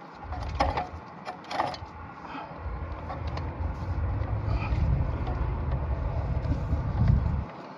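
Sewer inspection camera's push cable being drawn back onto its reel: scattered clicks and rattles over a low rumble that comes and goes, heaviest from about two and a half seconds in until near the end.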